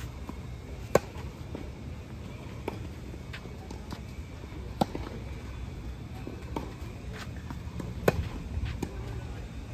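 Tennis ball struck by rackets in a baseline rally on a clay court: a sharp pop about a second in and again about eight seconds in from the near player's forehands, with a fainter hit from the far end of the court in between. Lighter ticks of footsteps and bounces fall between the hits.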